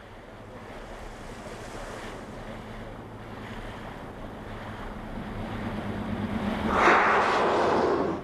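A fin whale's blow, a loud rushing exhalation starting nearly seven seconds in, heard from a boat over the steady low hum of its engine and the wash of water.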